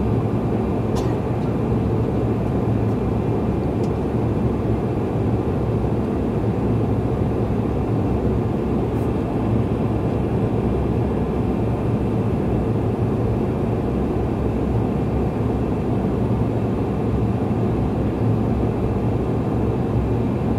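Steady cabin noise inside a Bombardier CRJ200 regional jet in flight: the even drone of the engines and rushing air with a strong low hum.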